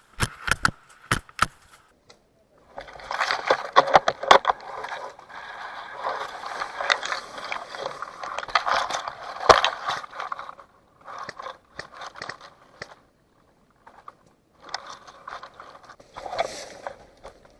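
Rustling and scraping of brush and clothing as someone moves through vegetation, in several stretches, the longest lasting about eight seconds, with many small twig snaps and clicks.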